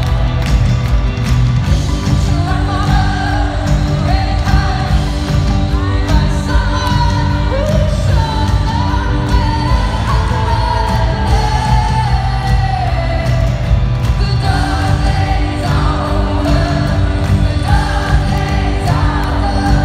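Live band with a female lead singer performing in an arena, recorded on a phone's microphone from the stands: loud singing over a full band with a heavy, steady beat.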